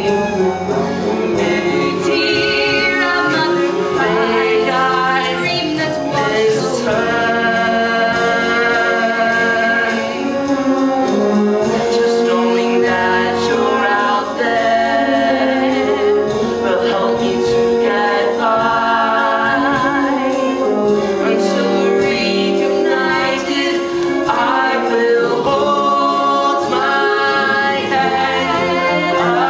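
Two voices singing a stage-musical ballad in harmony, with long held notes over instrumental accompaniment.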